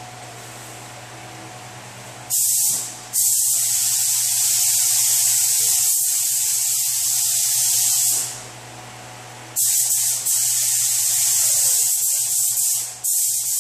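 SATA paint spray gun spraying in bursts of loud air hiss: a short squeeze, a long pass of about five seconds, then another pass of about three seconds with brief breaks, and a short burst near the end. A low steady hum sits underneath between the passes.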